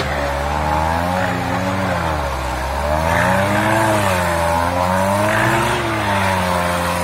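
Off-road 4x4 engine revving up and down under load, its pitch rising and falling in waves about every two seconds, with wheels spinning in deep mud as the stuck vehicle fights for traction.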